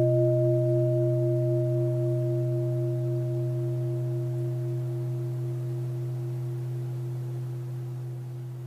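A large meditation bell ringing on after being struck, a deep low tone with a few higher tones above it, all slowly fading. The higher tones die away first, well before the low one.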